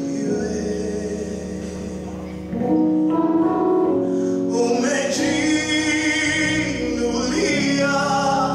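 Live gospel worship music: a male worship leader singing a Swahili praise song with instrumental backing. It gets louder about two and a half seconds in.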